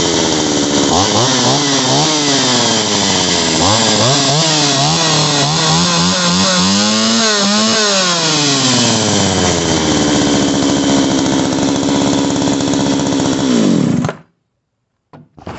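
Olympyk 945 AF two-stroke chainsaw running just after reassembly with a new fuel line and filter: revved up and down several times with the throttle, then settling to a steady idle before cutting off abruptly about fourteen seconds in.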